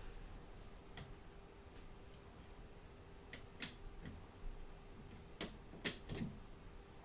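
Light, scattered clicks and taps of hands handling a netbook's plastic casing and RAM module, a few spaced seconds apart and several close together near the end, over a faint steady hum.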